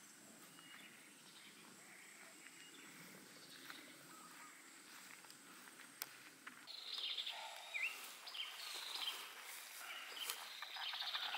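Quiet outdoor ambience: a faint steady high insect hum over a low haze, then about two-thirds through it gets louder, with short bird chirps and scratchy noises.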